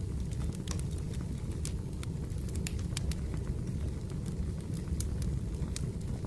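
Wood fire burning: irregular sharp crackles and pops over a steady low rumble of the flames.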